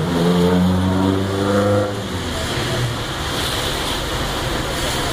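A car driving past close by, its engine note heard for about the first two seconds and then giving way to a steady rush of traffic and tyre hiss on the wet street.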